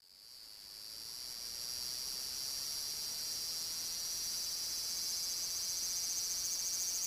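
Cicadas calling in a chorus: a steady, high, dense buzz that fades in over the first second or so and then holds.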